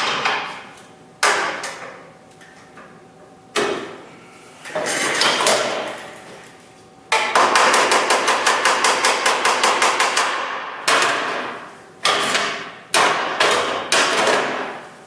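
Hammer blows on car-body sheet metal: a few single strikes, then a quick run of about seven blows a second for about three seconds, then several more single strikes.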